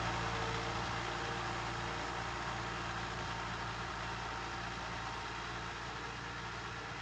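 Fiat 640 tractor's four-cylinder diesel engine running steadily while pulling a disc harrow through a field, slowly fading as the tractor moves away.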